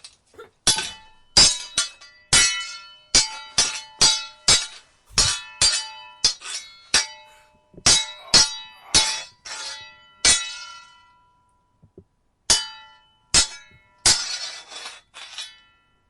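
Sword blades clashing in a rapid run of ringing metallic clangs, about twenty strikes. There is a short pause just after the middle, and it ends with a longer, scraping clash of blades.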